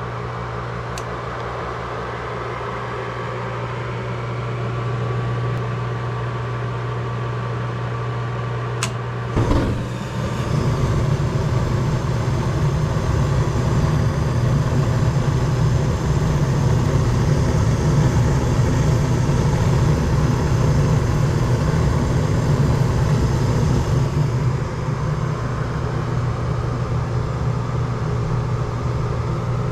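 Goodman gas furnace starting its heating cycle: the draft inducer motor runs with a steady hum, a click comes about nine seconds in, and then a louder, rougher steady rushing sets in as the burners light. The main blower never starts, a fault that is either a bad control board or a bad blower motor.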